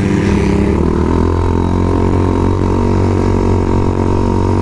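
Dirt bike engine running steadily while ridden at cruising speed, heard close up from the rider's own bike.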